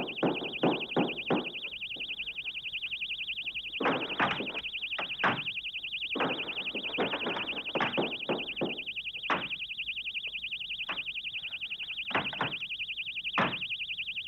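A shrill, rapidly warbling electronic tone, like an alarm or buzzer, held without a break, with short loud bursts of noise breaking in at irregular moments, several in a row, over and over.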